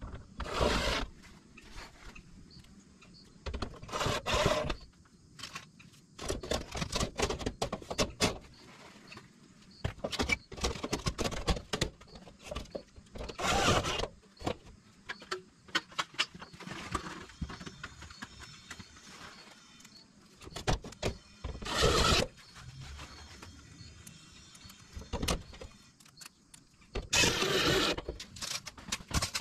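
Gutter guard sections being handled and worked into place between the shingles and the gutter: irregular bursts of scraping, rattling and clacking every few seconds. One sharp scrape comes about 22 seconds in, and a longer one near the end.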